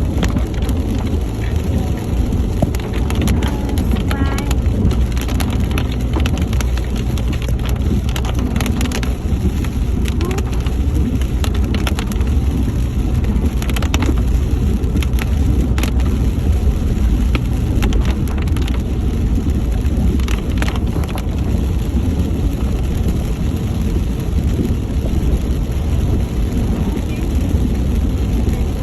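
Rain falling on a moving car over the steady low drone of its engine and tyres, with scattered sharp taps throughout.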